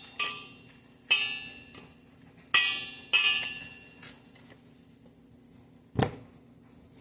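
A metal utensil knocking against a bowl about five times, each a sharp ringing clink, as squash seeds and pulp are knocked off into it; a duller thump comes about six seconds in.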